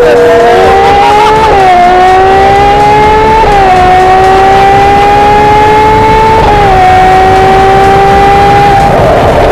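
Ferrari 812's 6.5-litre V12 with a Novitec exhaust system accelerating hard through the gears. The engine note climbs steadily and drops sharply with each of three upshifts, about a second and a half in, at three and a half seconds and at six and a half seconds. The note breaks up briefly near the end.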